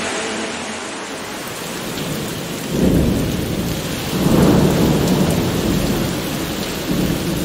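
Steady rain hiss with rolling thunder: deep rumbles swell up about three seconds in, peak around four and a half seconds, and roll again near the end.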